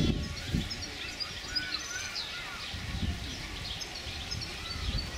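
Small birds chirping and twittering throughout, short high calls and a few brief whistled glides, over low rumbles, the loudest of which comes right at the start.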